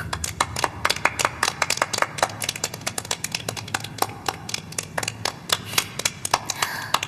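A small group of people clapping their hands in applause, quick uneven claps that run on for several seconds and thin out near the end.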